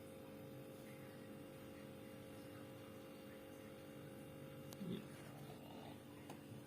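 Faint steady hum of a Sharp two-door refrigerator running, several steady low tones together, with a small click about five seconds in.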